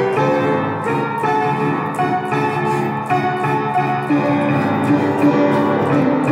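Keyboard music: piano-like notes struck one after another over sustained chords.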